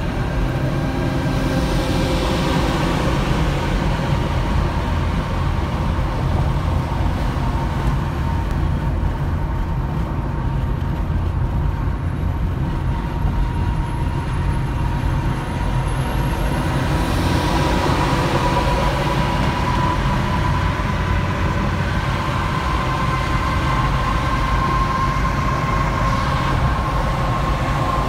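Steady highway driving noise heard from inside a moving car with a New Flyer C40LF transit bus running alongside: a low road-and-engine rumble with a steady whine that rises slowly in pitch through the second half, and a rushing noise that swells briefly twice.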